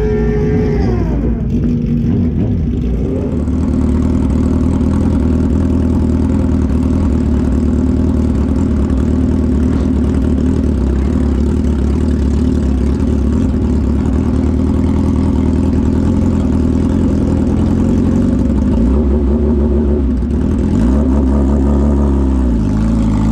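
A motor vehicle engine running steadily under way, its pitch sweeping briefly about a second in and dipping again near the end.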